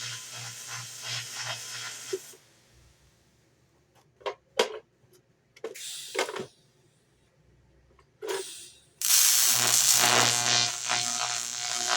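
AC TIG welding arc on aluminum buzzing, cutting off about two seconds in. A few short clinks and knocks of metal follow, and the arc strikes again, louder, about nine seconds in.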